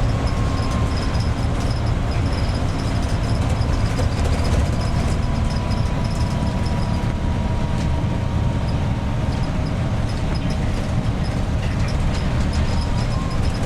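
Iveco 170S28 bus engine running at road speed from inside the cabin: a steady low rumble with a thin whistle that slowly slides lower in pitch. This is the strident turbo whine the bus is known for, which came from the factory that way.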